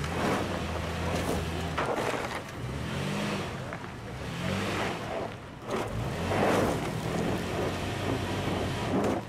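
Toyota Land Cruiser Prado 150's engine revving up and down several times as it struggles over diagonal wheel-lift without its rear diff lock, with bursts of scrabbling noise from the wheels and ground. Without the lock it loses traction like an ordinary crossover.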